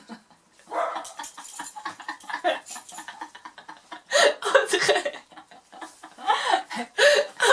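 Two women laughing hard in repeated bursts, loudest about four seconds in and again near the end.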